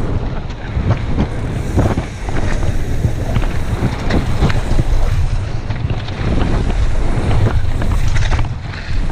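Wind buffeting the camera microphone as a mountain bike descends a gravel trail at speed, with tyres crunching over loose stones and the bike rattling and knocking over bumps.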